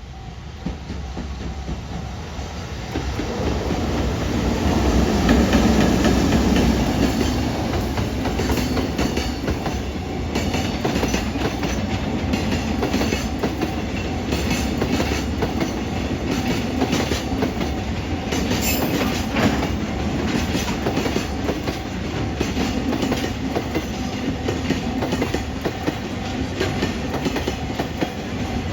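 Freight train of Koki container flatcars passing close by. It grows louder over the first few seconds, is loudest about five seconds in, then runs on steadily with the clickety-clack of wheels over rail joints.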